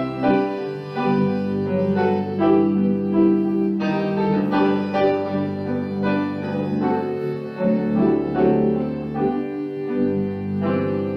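Piano and organ playing a hymn together: struck piano chords over held organ notes, in a slow, steady tempo.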